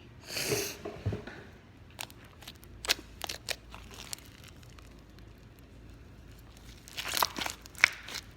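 Hands squishing and pressing a fishbowl slime full of small filler beads, giving crackly pops and crunches in short bursts: a busy burst about half a second in, scattered single pops in the middle, and another cluster near the end.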